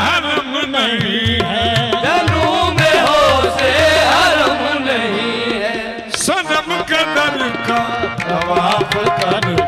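Qawwali music: harmonium and tabla playing, with a singer's pitch-bending vocal lines over them and no clear words.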